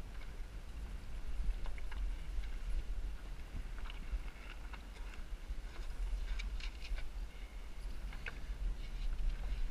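Wind buffeting the microphone on a small Snark sailboat under way, with short splashes of choppy water against the hull now and then, several close together around the middle.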